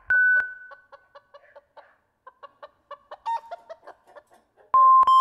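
Chicken clucking, a run of short repeated clucks, from a film clip's soundtrack. A loud steady tone sounds just before the clucking, and another, slightly lower one near the end.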